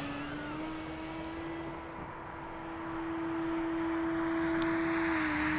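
Electric motor and propeller of a radio-controlled airplane in flight: a steady droning hum that dips in pitch near the end. It grows louder in the second half, with a rushing hiss building under the drone.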